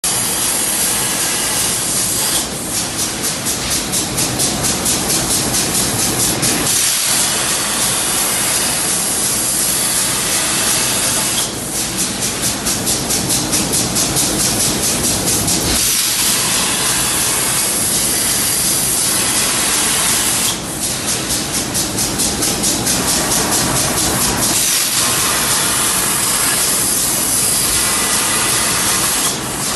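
Hypertherm XPR300 plasma torch cutting steel on a CNC table: a loud, steady hissing rush of the arc and gas jet. It dips briefly about every nine seconds, and a fast flutter follows each dip.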